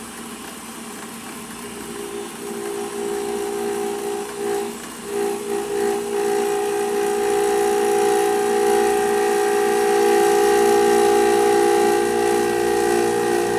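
Milling machine at 1800 RPM with a quarter-inch high-helix two-flute end mill beginning to cut into a round tube, fed in slowly by hand with no cutting fluid. A steady pitched whine sets in a couple of seconds in and grows louder, holding loud from about six seconds on.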